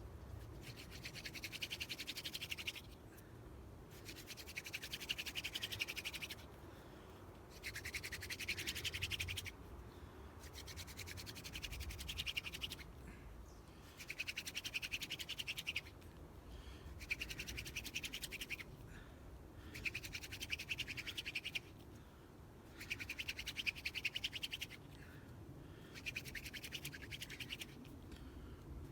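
Hand-drill spindle being spun between the palms into a wooden hearth board, a dry scratchy rubbing in strokes of about two to three seconds broken by short pauses as the hands return to the top of the spindle, about ten strokes in all. This is the drilling that grinds out hot dust to form an ember.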